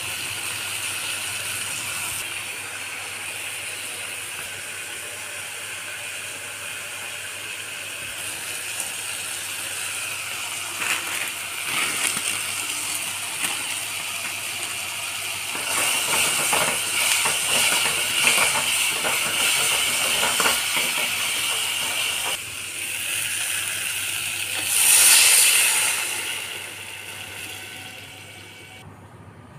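Onions, tomatoes and noodles sizzling in oil in a metal kadai, with a steady hiss and scattered clicks of stirring. About 25 s in the hiss surges loudly for a second or two as water hits the hot pan, then dies down near the end.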